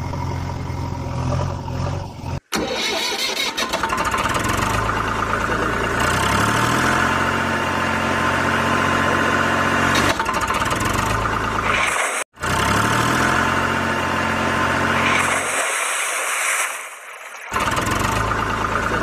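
A vehicle engine sound effect, idling steadily and rising in pitch twice as it revs up. It breaks off abruptly about two and a half seconds in and again about twelve seconds in, as if spliced.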